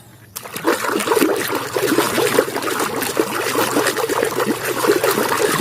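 Water running and splashing over a muddy toy as it is washed clean. It starts about half a second in.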